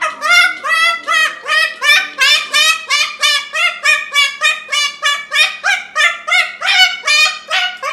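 A parrot calling in a rapid, even run of short, pitched squawks, about three or four a second.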